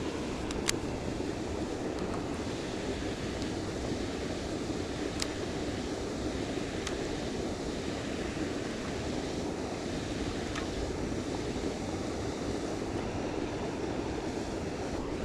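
Steady wind noise on the microphone outdoors, with a few faint clicks scattered through it.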